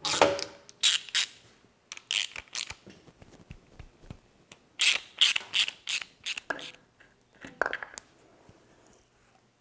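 Ratchet wrench clicking in several short bursts as it backs out the bolts on a milling machine's power-feed gearbox.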